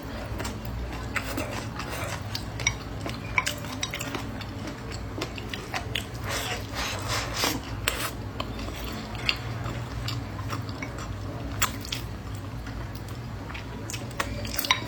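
Close-up eating sounds: biting and chewing food, with clicks and clinks of cutlery against a dish, over a low steady hum.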